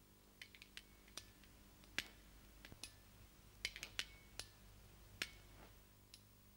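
Faint, irregular sharp clicks and ticks, some with a short metallic ring, scattered over near-silent room tone with a low hum.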